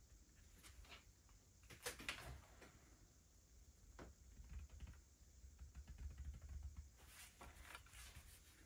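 Near silence with faint, scattered scratching and tapping strokes of drawing. The strongest cluster comes about two seconds in and another near the end, over a low steady hum.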